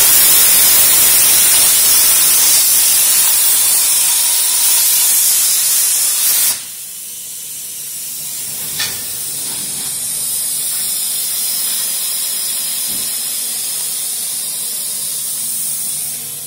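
Hypertherm MAX100 plasma arc on a Farley Elf CNC table cutting steel plate: a loud, harsh hiss that cuts off suddenly about six and a half seconds in. A quieter steady hiss carries on after it, with a single click a couple of seconds after the cut-off.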